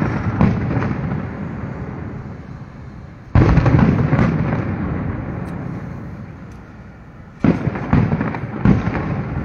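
Aerial fireworks shells bursting. A couple of smaller bangs come at the start, one big boom about three and a half seconds in, and a quick cluster of three near the end. Each trails off in a long rumble.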